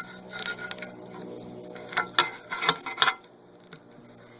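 A flathead screwdriver clicking and knocking against plastic wiring-harness clips on a riding mower as they are being pried loose, with several sharp clicks spread out, most of them two to three seconds in.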